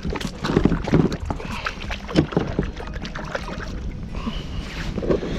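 Irregular knocks, clicks and rustling of handling on a fishing kayak, with wind on the microphone.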